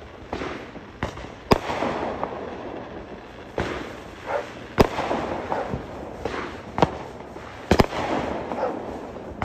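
Aerial fireworks exploding: several sharp bangs, one a quick double near the end, with crackling and smaller pops in between.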